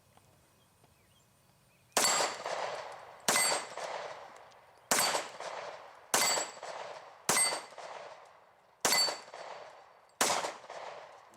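Kahr CW9 9mm pistol fired seven times at a slow, steady pace, a shot every second or so, each followed by a short ringing echo. The shots begin about two seconds in.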